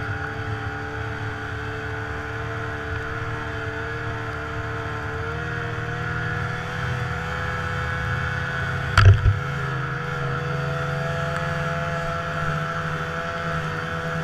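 Snowmobile engine running steadily under way, its pitch stepping up a little about five seconds in. A sharp double thump about nine seconds in is the loudest sound.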